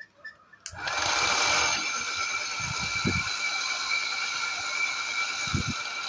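DC motor of a homemade cotton candy machine starting with a click under a second in and spinning the spinner head through a fan belt and pulleys: a steady high whine that holds several fixed tones. A few short low thumps sound around the middle and near the end.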